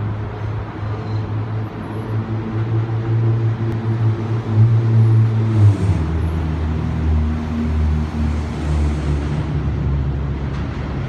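Road traffic with a motor vehicle's engine droning steadily; the drone drops to a lower pitch about six seconds in.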